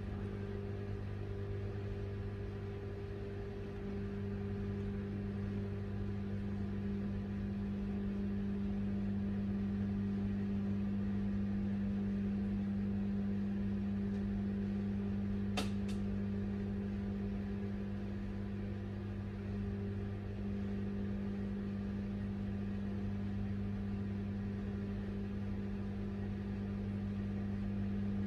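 Steady low mechanical hum, one low tone with its overtones, with a brief double click about halfway through.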